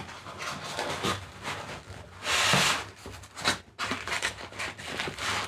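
Packaging rubbing and scraping against a cardboard box as a tightly packed product is worked out of it, with scattered clicks and one loud scrape about two seconds in.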